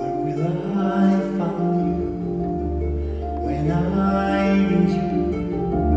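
Male voice singing slow, long-held phrases over sustained harp tones. A low double bass note comes in about two seconds in.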